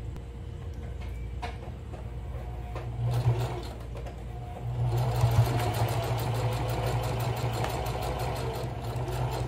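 Electric sewing machine top-stitching fabric: a short run of stitches about three seconds in, then running steadily from about five seconds on with rapid, even needle strokes.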